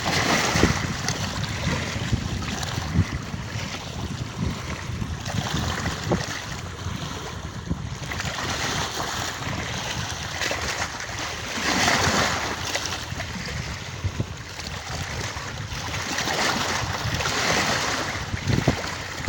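Sea waves and wind noise on the microphone, a steady rush that swells louder a couple of times.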